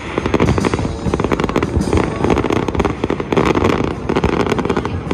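A fireworks display going off: many bangs and crackles in quick, unbroken succession.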